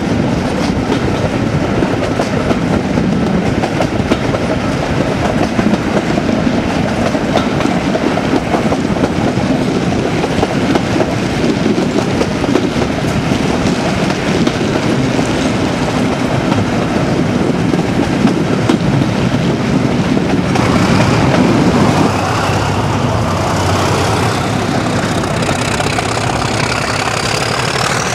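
Class 37 diesel locomotive's English Electric V12 turbocharged engine working hard under power, heard from the train just behind it with wind and wheel noise. In the last few seconds a whistling pitch climbs steadily as the engine builds up on the gradient.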